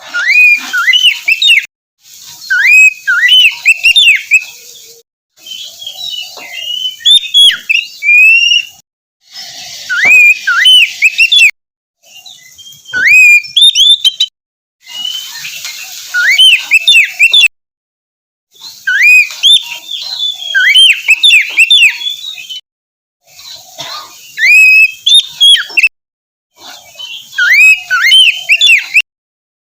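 Oriental magpie-robin (kacer) singing: loud phrases of rapidly rising and falling whistled notes, a second or two long, each broken off sharply by a short silence before the next.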